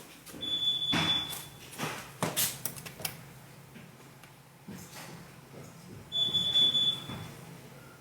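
Fire alarm sounding: a high-pitched electronic tone about a second long, twice, about six seconds apart. Knocks and rustling come between the first and second tone.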